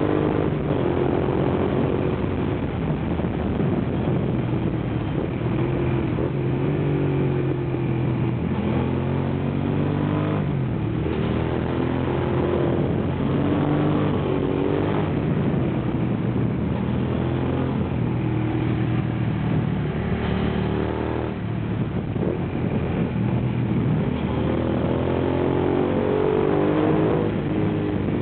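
Suzuki SV650's 645 cc 90-degree V-twin engine running under way, its note rising and falling again and again as the rider accelerates and eases off through bends. The engine is the restricted 52 hp version.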